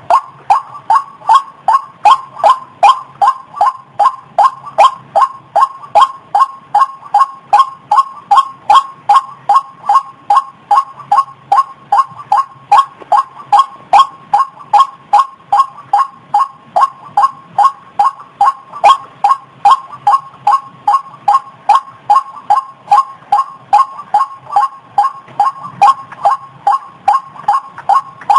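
White-breasted waterhen (ruak-ruak, kareo padi) calling: a loud, short, pitched note repeated steadily about twice a second.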